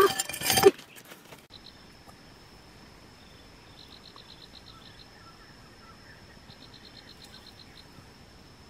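A brief loud clatter at the very start. Then frogs calling in two short trains of rapid high pulses over a steady high-pitched insect trill.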